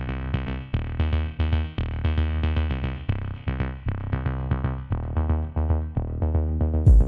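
Background electronic music with a steady beat, synthesizer notes and a heavy bass line.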